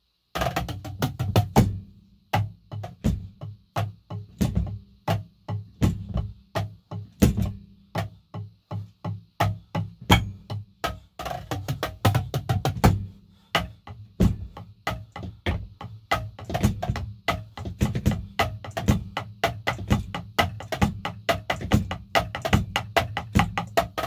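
Drumsticks striking the mesh pads and rubber cymbal pads of an unamplified Alesis Nitro Mesh electronic drum kit: the kit's own acoustic sound, a continuous beat of sharp taps with low thuds beneath. It starts a moment in.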